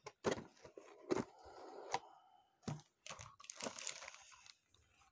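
A clear plastic bag holding plastic miniature sprues crinkles, and cardboard packaging rustles, as they are handled and pulled from the box. A few sharp clicks and knocks are scattered through it, with the densest crinkling about three and a half seconds in.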